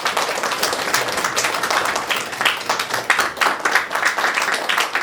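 A congregation applauding: many hands clapping together, dense and steady.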